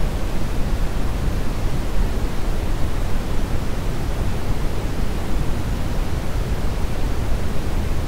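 Synthetic brown noise, a calibrated test signal whose power falls 6 dB per octave with rising frequency. It is a steady, deep hiss, strongest in the low end and thinning toward the treble, with no change over time.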